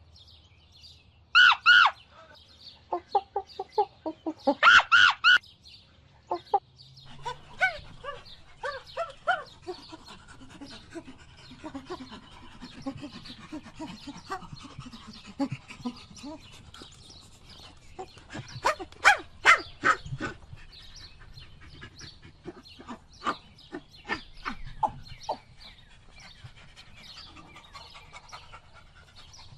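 Animal calls: loud, short pitched calls in quick clusters, the loudest in the first five seconds and again about two-thirds of the way through, with many softer calls scattered in between.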